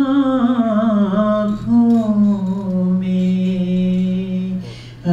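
A solo singer holds one long, wavering note of an Urdu song. The note slides down over the first second or so, holds steady, and breaks off near the end, over a steady low accompanying drone.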